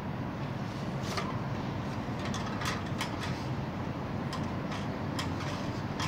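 Light clicks and rattles of a small wire birdcage as a hand works at it and reaches inside, several sharp ticks spread over a few seconds, over a steady low background rumble.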